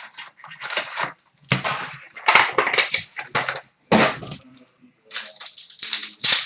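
Packaging of a sealed trading card box being torn open and crinkled: irregular crackling rips of plastic wrap and cardboard, in several bursts with short pauses.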